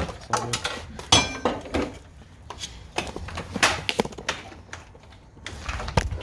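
Irregular knocks, clicks and clatter of plastic and metal car parts being handled and pried loose, with a brief metallic clink about a second in.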